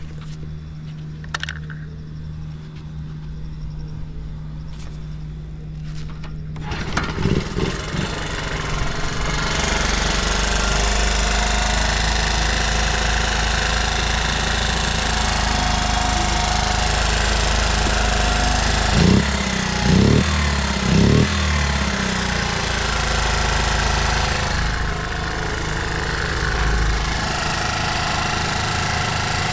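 Honda Gorilla Z50J's small single-cylinder four-stroke engine idling steadily, then running at higher revs for a long stretch. Three quick throttle blips come around two-thirds of the way through, and the engine settles a little lower near the end; there is no abnormal noise.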